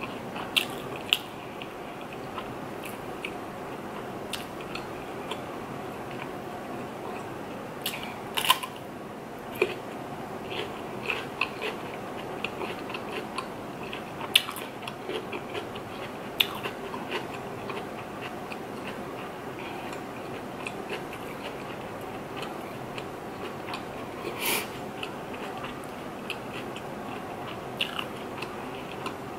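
Close-miked eating: crisp crunching bites of raw cucumber and chewing, a string of irregular sharp crunches, loudest a few times, over a steady low room background.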